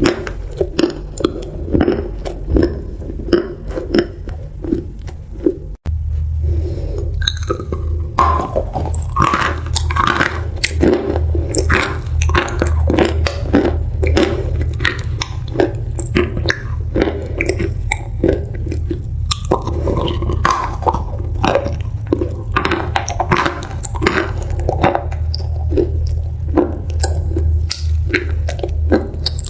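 Close-miked chewing of crunchy food, a steady run of crunches at about two to three a second. There is a very brief dropout about six seconds in, with a low hum underneath the chewing that is louder after it.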